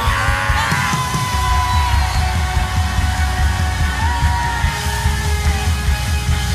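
Live worship band music, loud and steady, with a heavy low end and long held notes over it.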